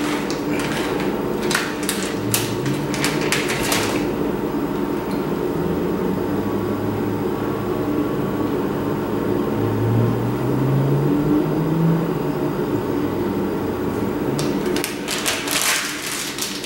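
Plastic bag of shredded cheddar crinkling and rustling in the hands as cheese is shaken over a pan of chili, in a cluster of crackles at first and again near the end, over a steady low hum.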